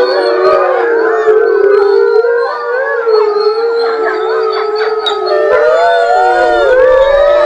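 Pack of wolves howling in chorus: several long howls overlapping, each gliding up and down in pitch. Group howling of the kind a pack sets off when one of its members is taken out of the enclosure for a walk.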